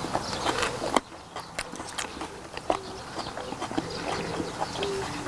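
People eating boiled pig's feet (jokbal): close chewing and lip-smacking, with scattered small clicks. The level drops suddenly about a second in.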